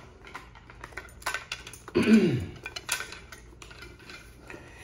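Handling noise as an Arai Corsair X full-face motorcycle helmet is picked up and pulled on over the head: scattered light clicks, knocks and rustles. About two seconds in there is a short grunt that falls in pitch.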